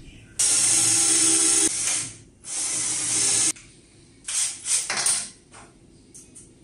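Cordless drill-driver running on screws in a wooden frame. It makes two runs of about a second each, then several short bursts.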